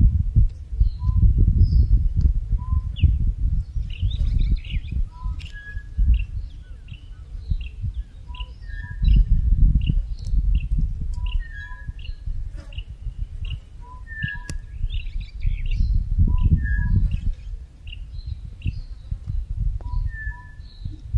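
Several songbirds chirping and calling over and over, short repeated notes and paired whistles, over a loud, uneven low rumble.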